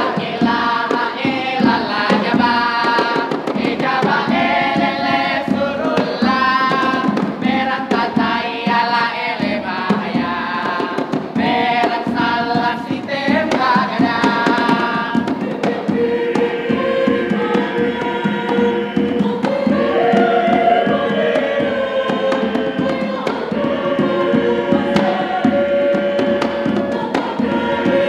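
A mixed choir singing a Makassar traditional song over fast, steady drumming. In the first half the voices sing short repeated phrases; from about halfway they hold long sustained chords.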